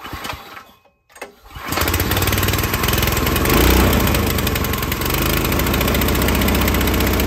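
Predator 212 single-cylinder four-stroke engine pull-started on its first-ever start: after a short pull or two, it catches about a second and a half in and runs steadily, swelling briefly near the middle.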